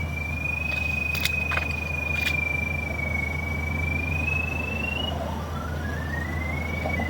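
Pipe locator tone as it tracks the sewer camera's sonde: a steady high whistle that slowly wavers in pitch, breaks off about five seconds in, then climbs again in small steps. A steady low engine hum runs underneath, with a few faint clicks.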